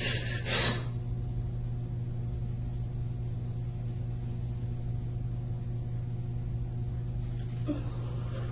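Steady low electrical hum of room tone, with a short, sharp breath or sniff in the first second.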